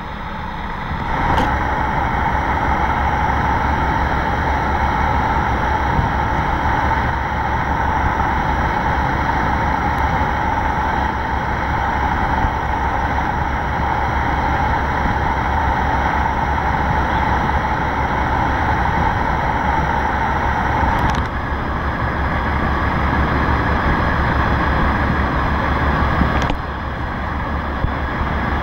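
Engines of the high-speed catamaran Flying Cat 4 running as it moves off: a steady low drone with a high whine held on top, changing slightly a couple of times.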